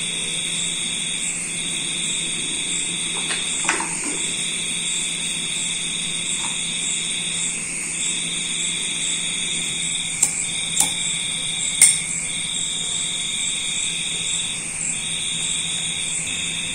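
A steady high-pitched trill that breaks off for a moment every second or two, over a low hum. A few light clicks and taps come in the middle, as a drinking glass is handled and set on the oiled back for manual cupping.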